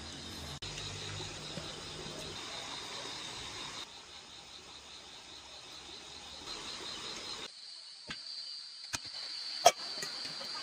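Crickets chirring steadily in the night, with a few sharp clinks of chopsticks and stainless steel bowls near the end.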